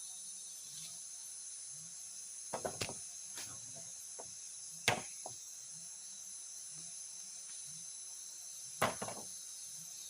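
Steady high-pitched forest insect chorus, with irregular sharp knocks: a quick cluster of three about two and a half seconds in, single knocks around the middle, the loudest near five seconds, and another short cluster near the end.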